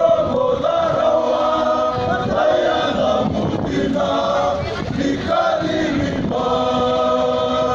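A group of men singing together in parts, in phrases of long held notes with short breaks between them.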